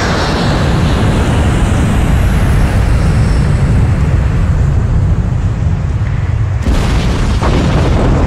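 Deep, loud, steady rumble of a jet plane's engines, then an explosion blast hits about six and a half seconds in, with a second burst about a second later: the plane crashing and blowing up.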